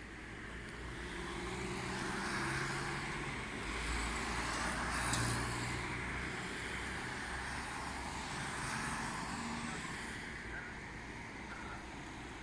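Road traffic: a vehicle passing along the road, its engine hum and tyre noise swelling over the first couple of seconds and slowly fading after the middle.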